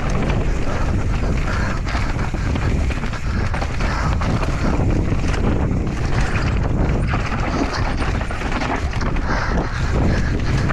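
Mountain bike ridden fast down a dirt trail: wind buffeting the microphone over a steady rumble of tyres on the ground, with frequent quick rattles and knocks from the bike over bumps.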